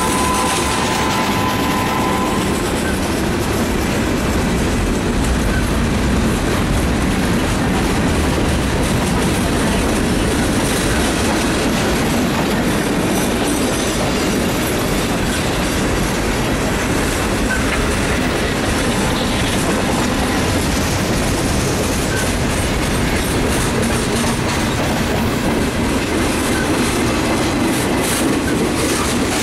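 Freight train cars rolling past close by: a steady, loud noise of steel wheels running on the rails, with the cars' trucks clacking over the track.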